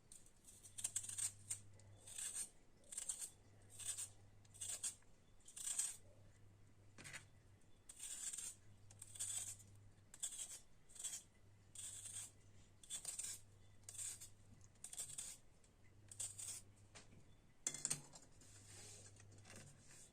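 Short scraping strokes of a blade on raw potato, about one a second, each a brief high-pitched rasp.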